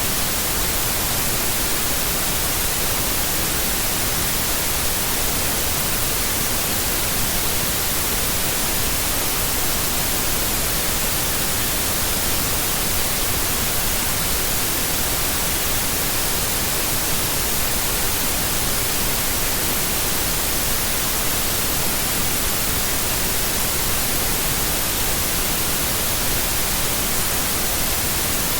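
Steady white noise: an even, unbroken hiss across the whole range of pitch, strongest in the highs, with no breaks or changes.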